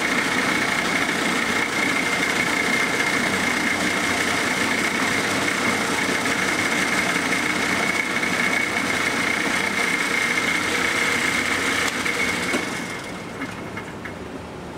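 Shop power tool running steadily with a constant high whine over a broad mechanical noise. It shuts off about 13 seconds in, leaving a quieter hum.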